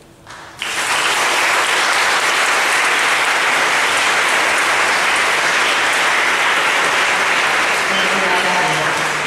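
Audience applauding, starting about half a second in and going on steadily, with a woman's voice starting over the clapping near the end.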